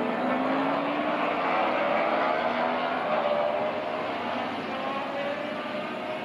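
Aircraft motors droning, several tones gliding slowly up and down in pitch; loudest in the middle and easing off near the end.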